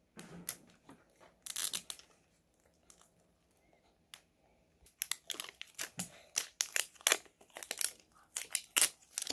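Plastic wrapping and a seal strip being peeled and torn off a Mini Brands capsule ball, crinkling. A few short tearing bursts come first, then a lull, then rapid crinkling and tearing for the last few seconds.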